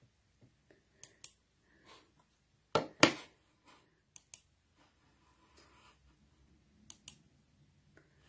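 Handling noise from a hand-held phone: sharp clicks, mostly in pairs about a quarter second apart, four pairs in all, the loudest about three seconds in, with near quiet between them.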